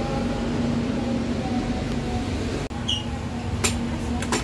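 Steady hum inside a passenger train coach, a constant low tone under even machinery noise. A short high beep sounds just after the middle, and two or three sharp clicks come near the end.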